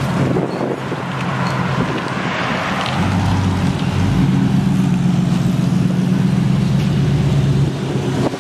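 Dodge Charger R/T's 5.7-litre HEMI V8 idling steadily through its exhaust. The low rumble grows louder and deeper about four seconds in and eases off again near the end.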